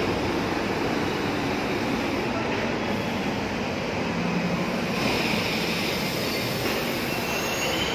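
Kolkata Metro train pulling into the platform and slowing, with a steady rumble of wheels on the rails and a faint high squeal near the end.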